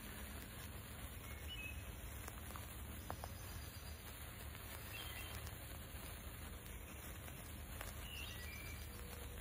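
Faint woodland ambience: a steady low rumble and hiss, with a few short, distant bird chirps and a couple of soft clicks.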